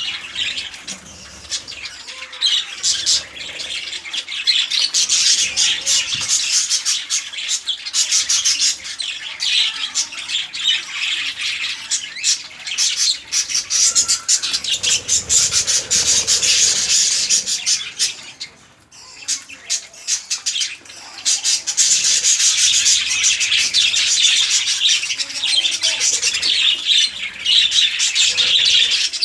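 A group of budgerigars chattering and squawking without pause, with a short lull about two-thirds of the way through.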